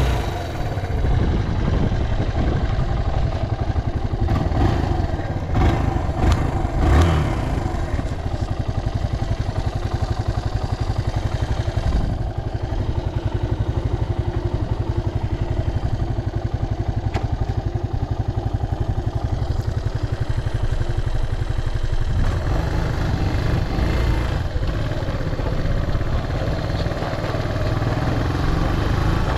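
Suzuki Djebel 125 single-cylinder four-stroke motorcycle engine running, briefly blipped a few times about five to seven seconds in and then idling steadily. It runs with no abnormal noises.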